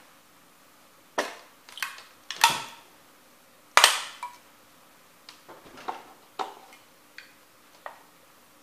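Sneakers stepping onto and pressing down on small model train houses: a run of sharp clicks and knocks, the loudest about four seconds in, then smaller ticks as the weight settles on the houses.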